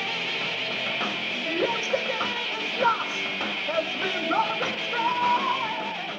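Lo-fi rehearsal recording of a hard rock band: electric guitars, drums and a male lead vocal playing together, under a steady hiss.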